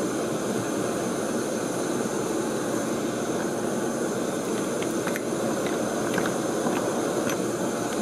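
Steady hissing rush of a lit gas torch flame, heating a Loctite-locked set screw to soften the thread-locker. A few faint metal clicks from the Allen key in the screw come partway through.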